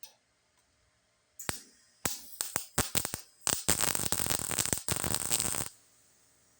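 Wire-feed welder arcing on thin sheet-metal body panel: a few short sputtering tacks, then about two seconds of continuous crackling weld that stops abruptly.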